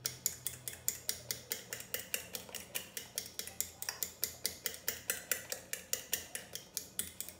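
A fork beating eggs in a plate, its tines clicking against the plate in a quick, steady rhythm of about six strokes a second.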